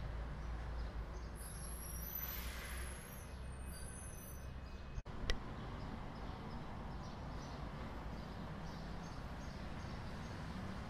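Steady rumble of road traffic on an overhead road bridge, with birds chirping for a couple of seconds near the start. About five seconds in the sound cuts out for an instant, then comes a sharp click.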